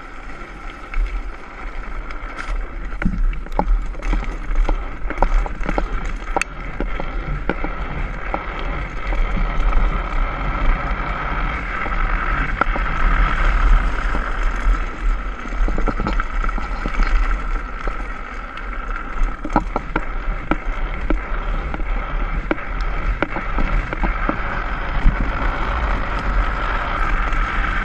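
Wind rushing over an action camera's microphone and wheels rolling fast on asphalt during an engineless downhill run on a drift trike, with frequent short knocks and rattles from the frame over bumps.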